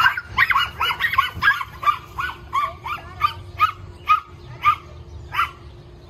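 Small dog yapping through a chain-link fence: a quick string of high-pitched barks, about three or four a second at first, then spacing out to one every half second or so.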